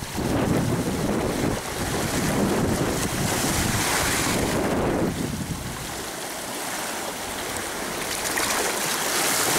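Small waves washing and foaming over a rock platform, with wind buffeting the microphone. The wind's low rumble is heaviest at first and eases about five seconds in, leaving the hiss of the water.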